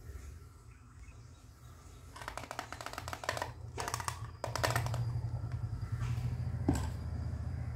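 Small plastic toy-kitchen pieces being handled: two runs of rapid plastic clicking and rattling about two and four seconds in, and a single sharper click near the end, over a steady low hum.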